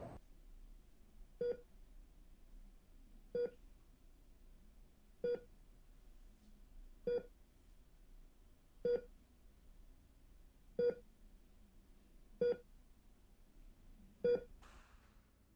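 Bedside patient monitor sounding its heartbeat tone: eight short, mid-pitched beeps at a slow, steady rate of one a little under every two seconds.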